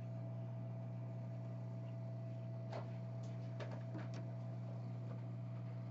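Hot-air rework gun blowing steadily with a low hum and a faint steady whine, heating the solder around a phone's charging port to desolder it. A few faint clicks come in the middle.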